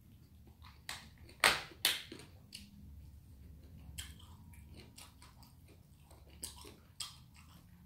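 A person chewing and biting mini gimbap close to the microphone, with a few sharp clicks and knocks from chopsticks and a plastic lunch box; the loudest two come about one and a half and two seconds in.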